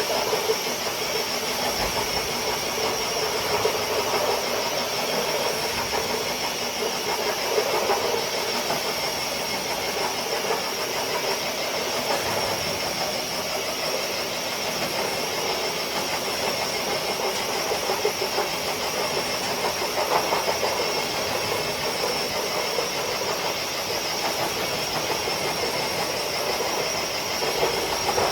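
Electric RC crawler truck pulling a weighted sled across concrete: a steady high motor-and-gear whine over a rough scraping noise, unbroken for the whole pull.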